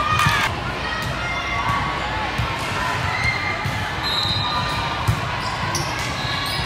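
Echoing gymnasium din: a murmur of player and spectator voices, with scattered volleyball thuds and short sneaker squeaks on the hardwood court.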